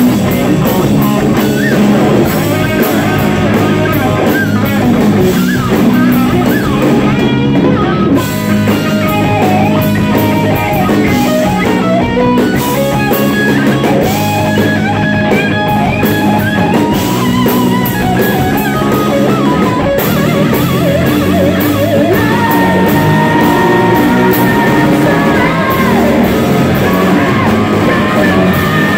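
Hard rock band playing live at high volume: a distorted electric guitar carries a wavering lead line over bass and a pounding drum kit.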